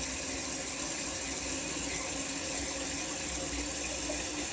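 Toilet tank refilling through a newly installed fill valve: a steady hiss of running water with a faint steady tone.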